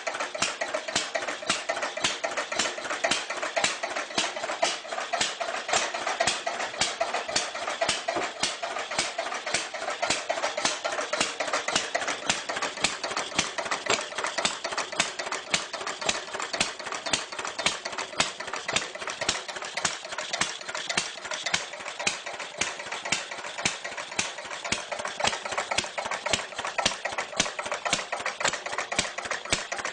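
Clunky old engine idling steadily, with a rapid, even clatter of sharp knocks.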